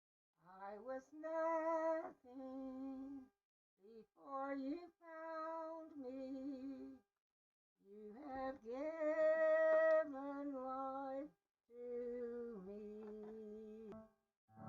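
Background music: a slow melody of long held notes in four or five short phrases, each separated by a moment of silence.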